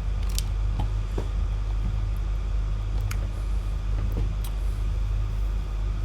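Steady low rumble with a handful of scattered computer-keyboard key taps.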